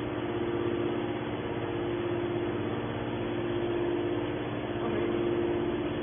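Hydraulic power unit of a scrap metal baler running with a steady hum while it drives the press lid closed.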